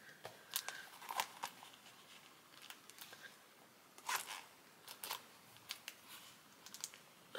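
Faint handling noise: scattered clicks, rustles and scrapes as a cased phone is pushed into a small wristlet that is too tight for it. The loudest scrapes come about a second in and about four seconds in.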